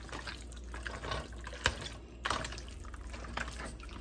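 Hands squishing raw chicken pieces through a yogurt marinade in a plastic bowl: irregular wet squelching and slapping, with one sharper slap about a second and a half in.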